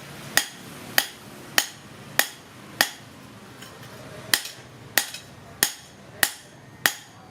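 Hand hammer striking metal, most likely a cleaver blade being forged. The blows come at a steady pace of about one every 0.6 seconds, each with a bright metallic ring, with a short pause of about a second and a half near the middle.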